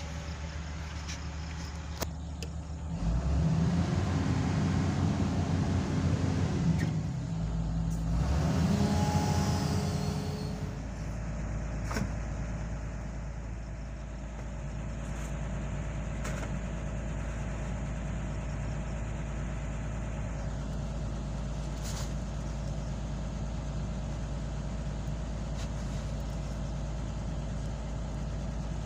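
Hitachi Zaxis 210F-5G excavator's diesel engine running, heard from inside the cab. From about three seconds in it works harder and louder for several seconds, then settles back to a steady idle.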